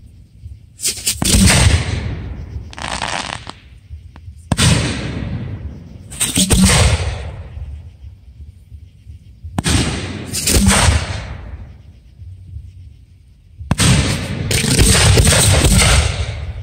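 Aerial fireworks shells bursting every few seconds, each a sharp bang with a rumbling tail that dies away over about a second. Near the end comes a denser run of bangs and crackle.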